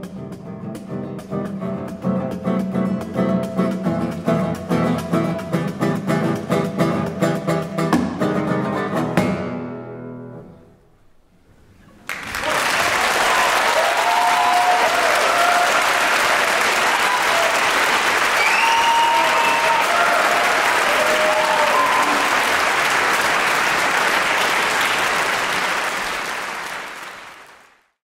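Classical guitar playing the closing bars of a piece, its last chords dying away about ten seconds in. After a brief hush, an audience applauds steadily with a few whoops, and the applause fades out near the end.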